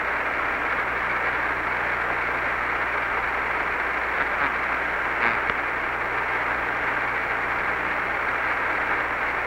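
Steady, thin hiss of the Apollo 11 air-to-ground radio link left open between transmissions, with a faint low hum under it and a couple of faint clicks about halfway through.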